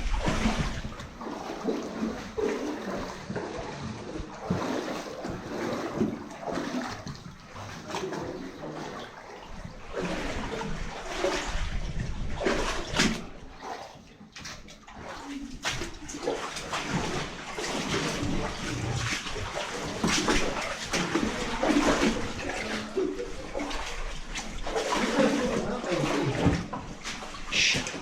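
Irregular splashing and sloshing of feet wading through standing water on a flooded tunnel floor, with a short lull about halfway through.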